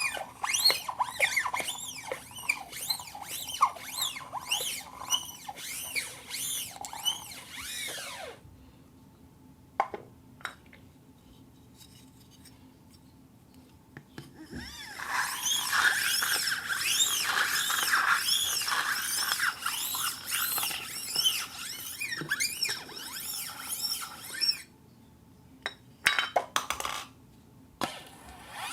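Plastic cup squeaking as it rubs against a rotating turntable plate, a rapid run of squeaks that glide up and down in pitch. The squeaking stops for about six seconds partway through, leaving only a few clicks, then comes back louder and denser, and ends with a few sharp clicks near the end.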